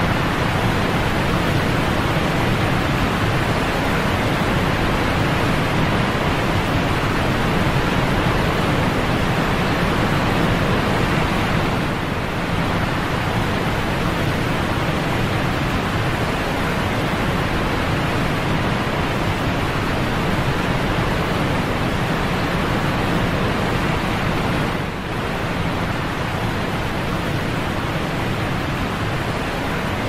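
Steady rush of falling water, an even hiss with no separate splashes or events. It dips slightly in level twice, about twelve seconds in and again near twenty-five seconds.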